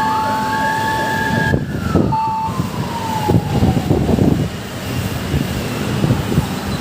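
Electric commuter train passing through the station: its motors' whine rises to a held high note, then falls steadily over about two and a half seconds, over the rumble and knocking of the wheels on the track.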